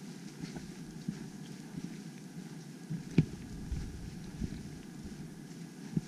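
Footsteps walking on a forest dirt trail, with wind rumbling on the microphone and one sharper knock about three seconds in.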